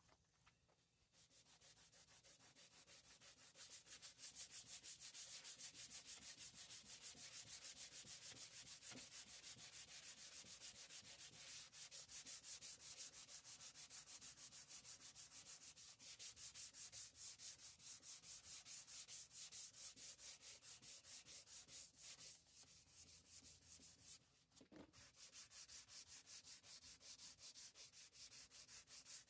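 Sandpaper sanding a boat's fiberglass gel coat to take off oxidation, a faint scratchy rubbing in quick, even strokes. It starts about a second in and pauses briefly near the end before resuming.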